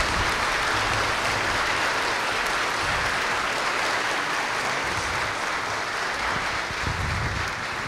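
Audience applauding: a steady wash of many hands clapping, easing slightly near the end.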